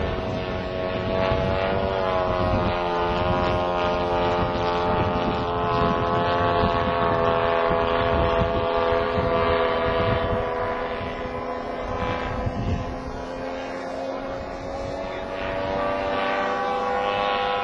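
Radio-controlled model Dornier Do 335 in flight, its propeller engine running steadily overhead. The pitch drifts slowly, sagging a little past the middle and climbing again near the end.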